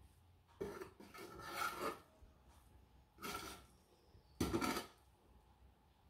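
Perforated metal spoon scraping through cooked rice and against a rice cooker's metal inner pot as the rice is stirred: a few short scraping strokes, the longest running from under a second in to about two seconds, then two more around three and four and a half seconds.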